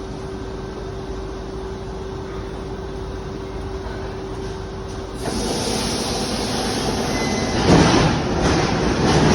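ED4M electric train at a station platform: a steady hum over a low rumble, then about five seconds in the train noise suddenly gets much louder as a train moves through, swelling to its loudest near the end.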